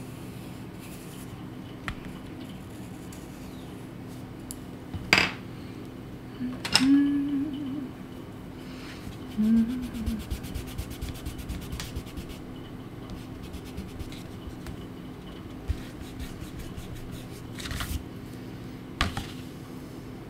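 Pencil scratching on drawing paper, with a hand rubbing across the sheet. A few sharp knocks come at intervals over a low steady hum.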